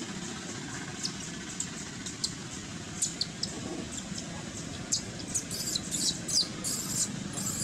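Baby macaque giving short, high-pitched squealing cries, a few at first, then coming thick and fast in the second half. The cries of a baby being weaned, kept from its mother's milk.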